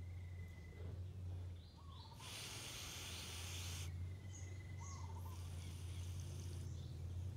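Hand-pump pressure sprayer hissing as it sprays water onto soil, in two bursts of about a second and a half each, the second fainter. Birds chirp faintly in the background over a steady low hum.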